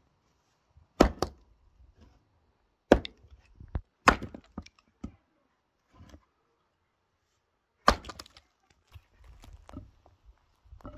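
Axe blows splitting firewood on a chopping block: four hard, sharp strikes, about a second apart at first and the last near the end, each followed by lighter knocks of split pieces.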